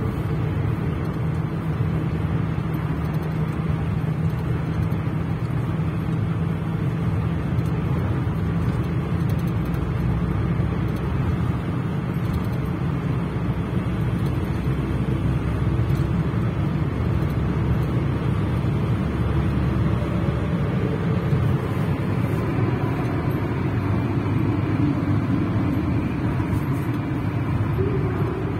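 Steady engine and tyre rumble heard from inside a moving car's cabin, driving through a road tunnel.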